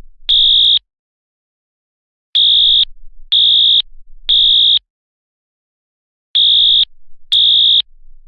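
Fire alarm sounding a loud, high-pitched beep in the three-beep (temporal-three) evacuation pattern: three half-second beeps about a second apart, a pause of about a second and a half, then the group repeats. This pattern signals that the building must be evacuated.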